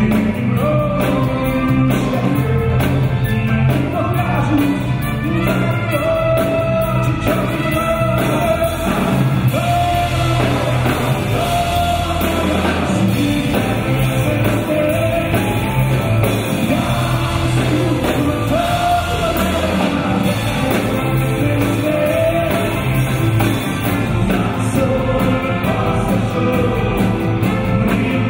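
A live rock band playing a song: electric guitars and a bass guitar under a male lead singer, in a large hall.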